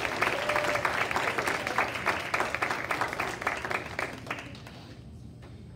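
Audience applauding, many people clapping at once. The applause fades out about four and a half seconds in.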